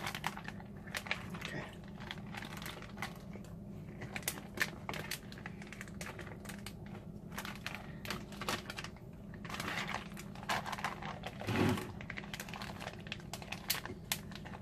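Plastic zip-top freezer bags crinkling and crackling in irregular small clicks as they are pressed down into a pot of hot water, the water squeezing the air out of the bags before they are sealed. A short low sound stands out about three-quarters of the way through.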